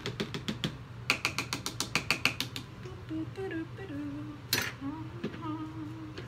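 Metal spoon and plastic spatula clicking rapidly against a plastic cup while sodium lactate is stirred into lye solution, about eight clicks a second for the first two and a half seconds. Then a woman hums a tune softly, with one sharp knock in the middle.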